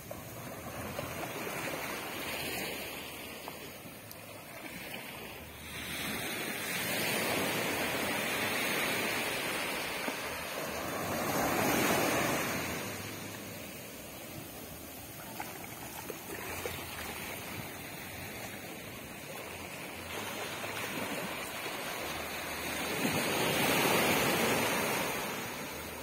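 Small waves breaking and washing up a sandy beach, the surf swelling and fading several times, loudest about halfway through and near the end.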